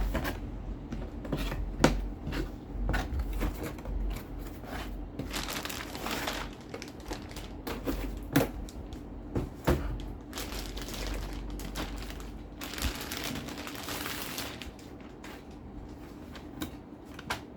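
A stapler's packaging being unboxed by hand: crinkling and rustling of the wrapping with longer tearing or sliding rustles, broken by scattered knocks and clicks as the box and contents are handled.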